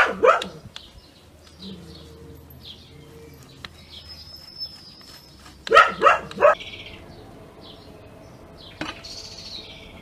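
A dog barking: a quick double bark at the start and three barks about six seconds in, with small birds chirping faintly in the background.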